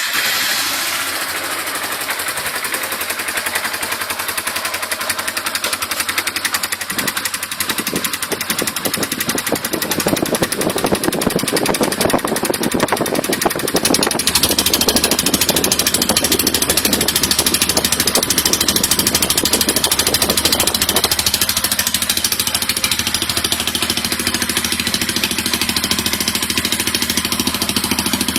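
Yamaha Fazer 150's single-cylinder four-stroke engine running through an aftermarket Roncar Coyote 2Way exhaust, idling steadily with a rapid, even beat; the note shifts slightly a few times.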